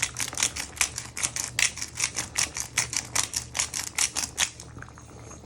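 Black pepper grinder being twisted over the pan, a rapid even clicking of about five or six clicks a second that stops shortly before the end.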